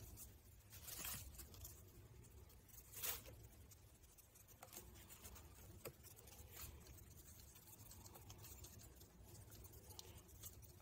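Faint handling sounds of a screwdriver being worked through stroller seat fabric against the frame: scattered small clicks and soft rustles, with two brief scratchy sounds about one and three seconds in, otherwise near silence.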